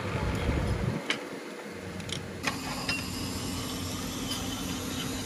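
Workshop machinery running steadily, with a few sharp metallic clicks. About two and a half seconds in the sound changes abruptly to a steady low hum.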